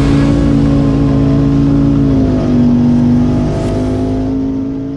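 Turbocharged 5.3 LS V8 of a 1993 Chevy 1500 pickup held at high revs, its pitch dipping about halfway through and climbing back a second later.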